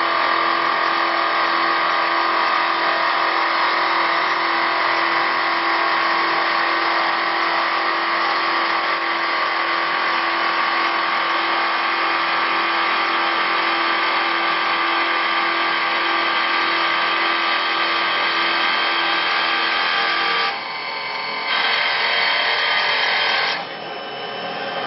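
CNC wood turn-broaching lathe cutting a wooden blank: a steady, noisy cutting sound over a steady machine whine. It dips twice near the end, once briefly and then again just before the end.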